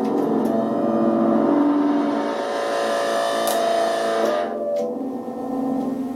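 Homemade 555-timer polyphonic keyboard synthesizer driving analog synth modules, several buzzy electronic tones sounding together and shifting in pitch. The bright upper part of the sound drops away about four and a half seconds in.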